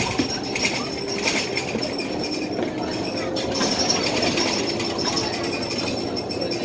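Saloon noise inside a Scania L94UB single-deck bus: the diesel engine's steady drone, with light rattles and knocks from the bus's fittings.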